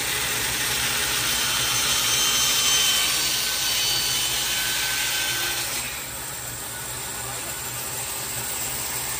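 Band saw cutting through a large resin-rich pine burl (fatwood): a steady rasping saw noise over the low hum of the motor. About six seconds in the noise drops and thins as the cut finishes.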